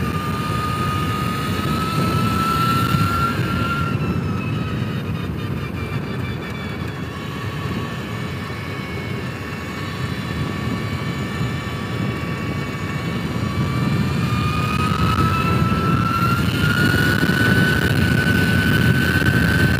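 Energica electric motorcycle under way: a thin, high electric-drive whine that sinks in pitch as the bike eases off around the middle, then climbs again as it speeds up near the end, over a heavy rush of wind and tyre noise.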